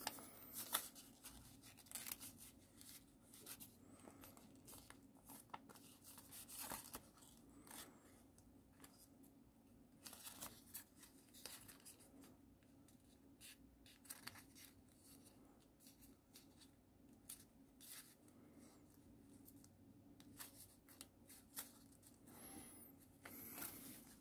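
Faint, irregular rustling, crinkling and small clicks of white paper being folded and creased by hand, shaping the leg of an origami eagle, over a faint steady low hum.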